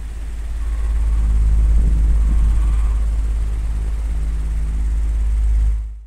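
Oscillating electric fan running with a steady low motor hum, its swivelling head giving a couple of faint squeaks. The sound swells as the head turns and fades out at the end.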